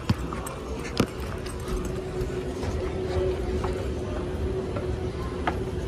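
Escalator running with a steady hum and light mechanical clicking, the hum growing stronger as it is boarded; two sharp footsteps on a hard stone floor in the first second.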